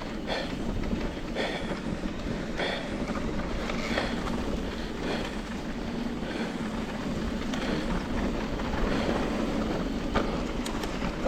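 Trek Rail electric mountain bike rolling over rough, rocky ground: steady tyre and rolling noise with irregular clicks and rattles from the frame and drivetrain.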